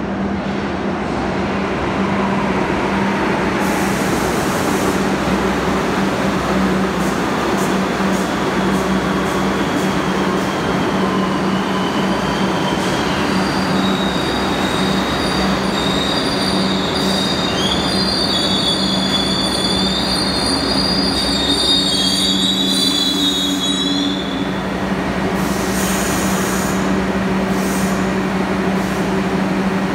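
R62A subway train rumbling into the station and braking to a stop over a steady low hum. Long, high, wavering wheel and brake squeals run through the middle of the arrival and die away as it halts. A few short hisses follow near the end.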